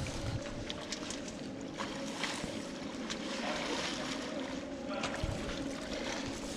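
Steady rushing noise of wind and water, with a few faint clicks and knocks.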